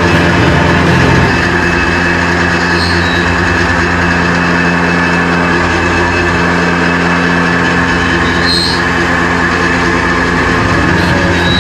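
Tormach PCNC 1100 CNC mill cutting aluminium with an end mill under flood coolant: a steady machining hum with several held tones and a spray-like hiss. It dips slightly about a second in, and a few brief sharper sounds come through.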